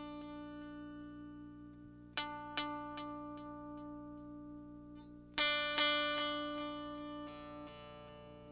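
Background music: acoustic guitar chords struck and left to ring out, a pair about two seconds in and a quicker run of strokes about five and a half seconds in, over a steady held low note.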